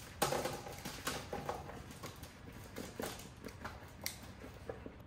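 Oil-coated halved Brussels sprouts tumbling out of a mixing bowl onto a parchment-lined baking sheet: a run of irregular soft taps and knocks, the loudest about a quarter second in.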